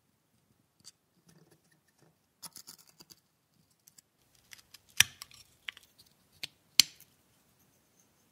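A pointed steel pick scratching and prying at the cracked, flaking black coating on a rusty Meccano metal wheel, with short scrapes and several sharp clicks, the loudest about five and about seven seconds in.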